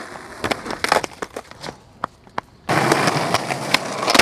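Skateboard being ridden: a run of sharp clacks of the board's tail and wheels striking the pavement, then the rolling rush of its wheels over pavement from a little past halfway.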